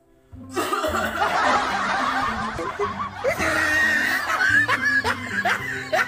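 Laughter starting about half a second in: first a dense stretch of laughing, then from about three seconds in a string of short rising chuckles, roughly two a second, with music playing underneath.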